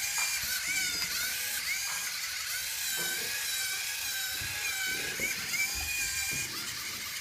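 Small geared electric motors of a LEGO Mindstorms line-following robot whining as it drives. The pitch wavers up and down about once a second as the motors speed up and slow down to steer along the tape line.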